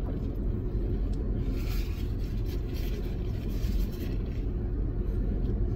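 Steady low rumble of a car engine idling, heard inside the cabin.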